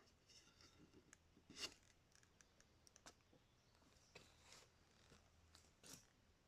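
Near silence: faint scattered clicks, with two brief, slightly louder rustling scrapes, one about one and a half seconds in and one near the end.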